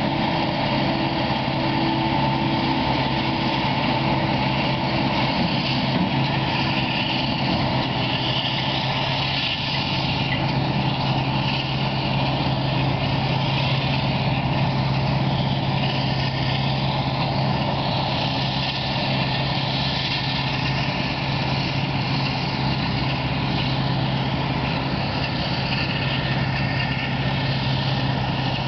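Claas Jaguar 900 self-propelled forage harvester working in maize, its engine and chopper running steadily under load as it fills a tractor-drawn trailer. The sound is a constant, unbroken drone with a strong low hum, with tractor engines running alongside.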